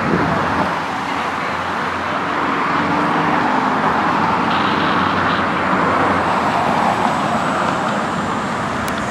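Single-engine propeller aerobatic plane's engine droning steadily overhead, mixed with the steady hiss of road traffic.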